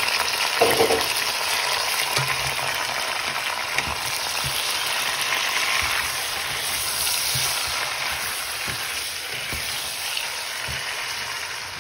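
Raw chicken pieces sizzling in hot oil with fried onions in a pot, stirred with a wooden spatula that knocks softly against the pot now and then. The sizzle eases slightly towards the end.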